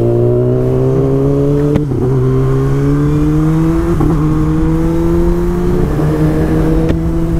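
Kawasaki Ninja ZX-10R inline-four engine pulling under way, its pitch climbing slowly, with short breaks about two, four and six seconds in.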